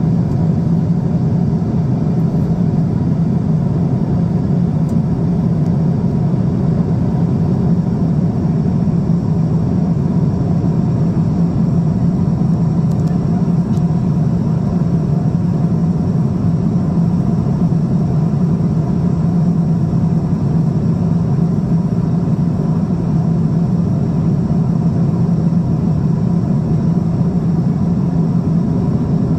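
Steady cabin drone of a Boeing 777-200 in flight, the engines and rushing air heard from a window seat as a deep, even rumble.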